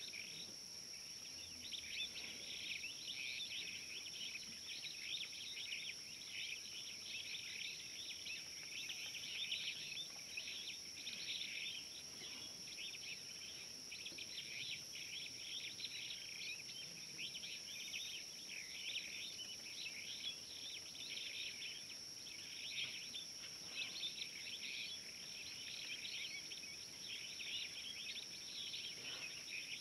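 Outdoor ambience of dense, continuous chirping from insects and birds, with a constant high-pitched whine above it.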